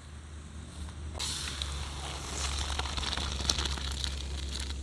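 Hot boiled rice and water being poured from a metal cooking pot into a bowl: a wet, even pouring hiss that starts suddenly about a second in, with small scattered clicks.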